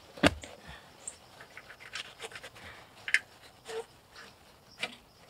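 Paper towel rubbing and crinkling against the metal carburetor mounting flange of a snowblower engine, a series of short scratchy wipes. A sharp tap about a quarter second in is the loudest sound.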